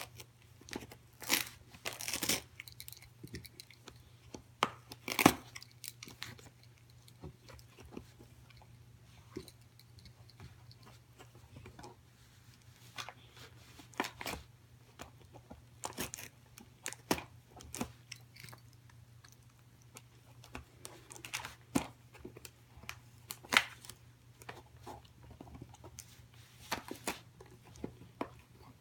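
Pembroke Welsh corgi biting and tearing at the wrapping paper on a gift box: irregular rips, crinkles and crunches of paper and cardboard with short pauses between bouts.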